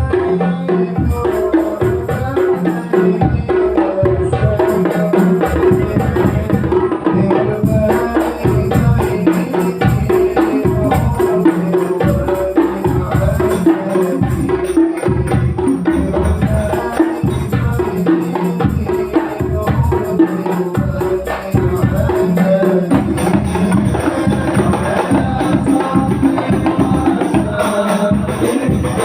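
Hadrah ensemble music: rebana frame drums and jingling tambourines play a steady, driving rhythm, with a melody above the drums.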